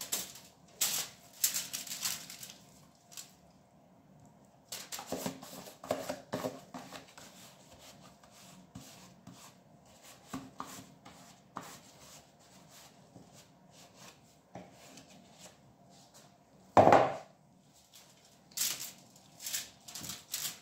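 Raw marinated chicken wings being tipped from a plastic container and spread by a gloved hand on a foil-lined baking tray: scattered crinkles of aluminium foil, soft wet slaps and light knocks, with one louder thump near the end.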